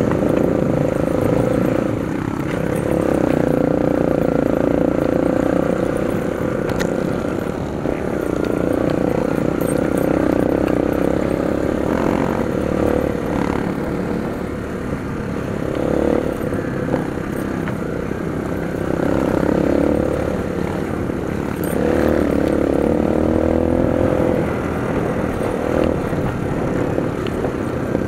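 Dirt bike engine running under way, its note rising and falling repeatedly as the throttle is worked over the rough trail.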